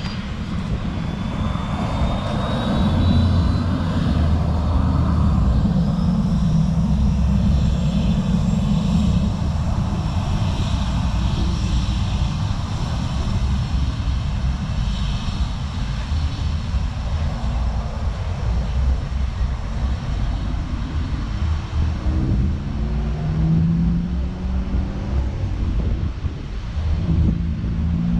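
Jet airliner's engines spooling up to takeoff power, a faint rising whine in the first seconds, then a steady loud rumble as the plane accelerates down the runway away from the listener. Wind buffets the microphone.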